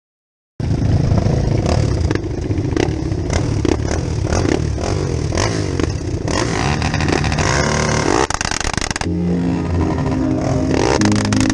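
Off-road vehicle engine running, with rattling and knocks as it drives over rough ground, starting suddenly about half a second in.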